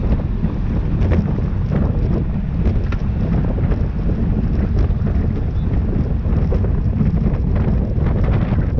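Steady, loud wind buffeting on the microphone of a camera riding along with a bicycle at race speed.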